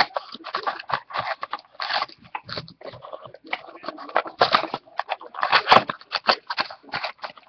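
Plastic trading-card pack wrappers crinkling and tearing as hands open them, an uneven run of crackles and rustles.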